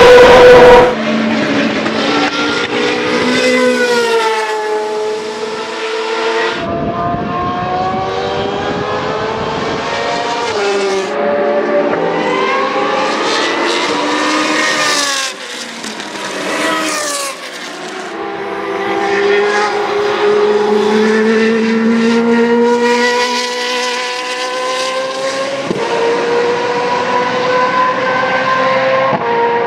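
Open-wheel single-seater race car engine at high revs, its pitch climbing and dropping again and again as it accelerates through the gears and backs off. The sound changes abruptly several times, with a brief dip in level midway.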